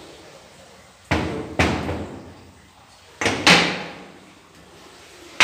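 Five sharp hammer strikes on metal centrifugal-pump parts, roughly in pairs, each ringing out briefly: the pump is being knocked apart to replace its bearing and mechanical seal.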